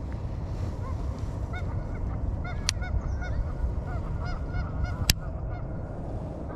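A flock of geese honking, many short calls overlapping, over a steady low rumble. Two sharp clicks come through, about a third of the way in and again past the middle.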